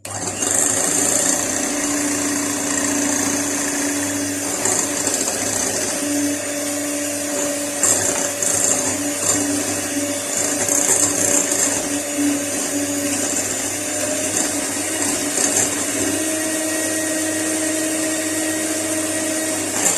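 Electric hand mixer switched on and running steadily, its beaters whisking cake batter of eggs, sugar and oil in a bowl. The motor's hum rises slightly in pitch a few seconds before the end.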